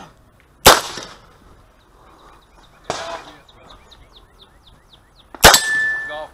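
Chiappa Rhino .38 Special revolver firing: two loud, sharp shots about a second in and near the end, with a quieter crack around the three-second mark. A ringing tone lingers briefly after the last shot.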